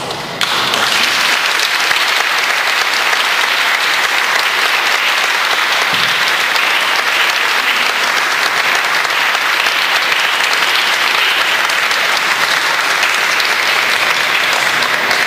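An audience applauding steadily. The applause breaks out about half a second in.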